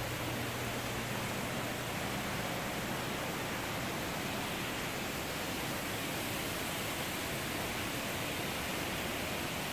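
Steady, even hiss of background noise, with a low hum underneath that fades out a few seconds in.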